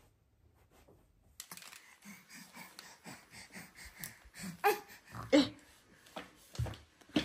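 Babies vocalizing: breathy grunts and short squeals, with a few loud ones in the second half, after a near-silent first second and a half.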